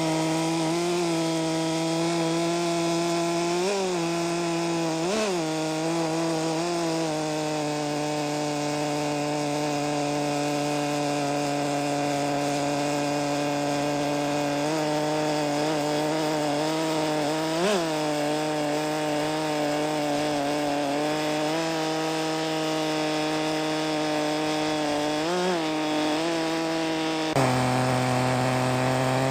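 Chainsaw running steadily at high speed while ripping a log lengthwise in a chainsaw mill, with a few brief pitch blips; near the end its pitch steps down abruptly and it gets louder.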